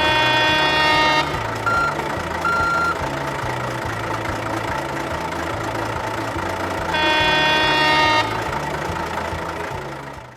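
Truck horn honking for about a second, then two short high beeps, then the horn again about seven seconds in, over a steady low rumble.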